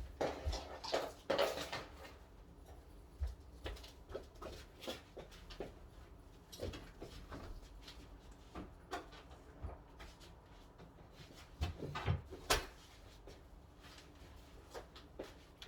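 Scattered clicks, knocks and rustling of hands and tools working on a side-by-side refrigerator being taken apart, with one sharp knock about three-quarters of the way through.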